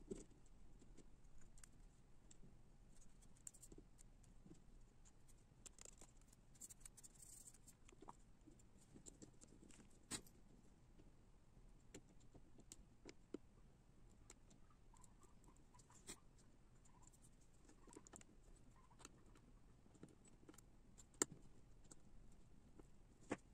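Faint scattered ticks and scrapes of a small flat-blade screwdriver turning tiny truck screws into a fingerboard deck, with a few sharper clicks, the loudest near the end.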